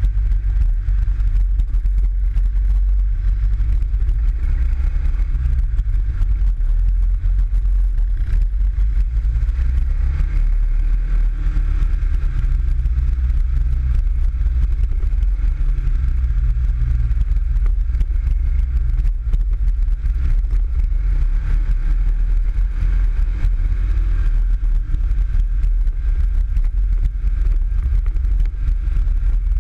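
PGO 500i off-road buggy's engine running steadily under way on a rough, muddy trail, heard from the cockpit, with a heavy low rumble.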